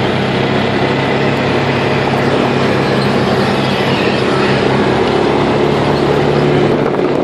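An engine running steadily at a constant speed, with a noisy rush over a steady hum.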